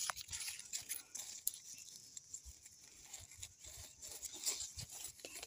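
Faint rustling and crackling of maize leaves being handled, with scattered light clicks.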